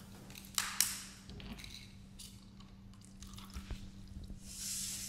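Water poured from a plastic bottle into a thin plastic cup, a hissy splashing near the end. It comes after two sharp clicks about half a second apart, less than a second in, as the plastic bottle and cup are handled on the table.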